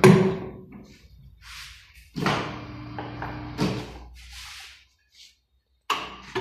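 Metal knocks and clinks at a tyre-shop wheel balancing machine as wheel weights are picked from its tray and handled: a loud knock at the start, more about two and three and a half seconds in and near the end, some leaving a short low ring.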